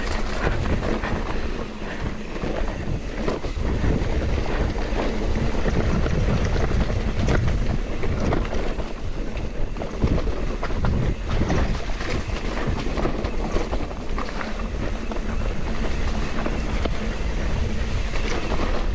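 Forbidden Druid full-suspension mountain bike riding fast down a muddy dirt trail: steady wind on the camera microphone with tyres on dirt, and irregular knocks and rattles from the bike over bumps.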